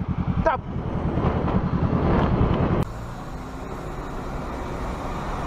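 Motorcycle engine running with fast low pulsing, getting louder, then cut off abruptly about three seconds in. A quieter, steady car engine and road hum follows.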